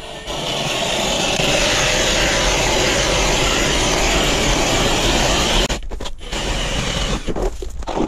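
Ice auger driven by a Ridgid cordless drill boring through lake ice: a steady grinding of the blades cutting ice that stops suddenly about five and a half seconds in. A few quieter, short sounds follow as the auger is worked in the hole.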